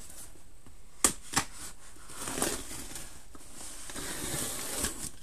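Cardboard shipping box being opened: two sharp knocks about a second in, then scraping and tearing of cardboard and packing tape.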